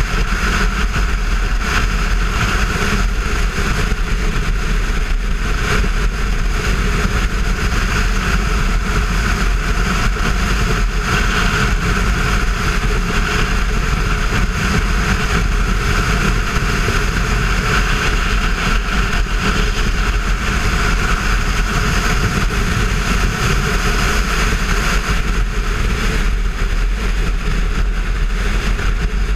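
Kawasaki Versys 650 ridden at a steady road speed, heard from a camera on the bike. Its parallel-twin engine drones under a heavy, constant rush of wind noise, with no revving up or down.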